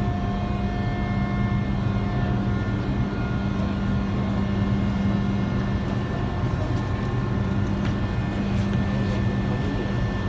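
Ship's machinery running with a steady low drone and an even hum.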